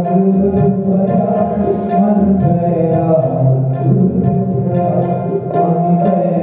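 Kirtan: devotional hymn singing with musical accompaniment, continuous, with light percussion strokes.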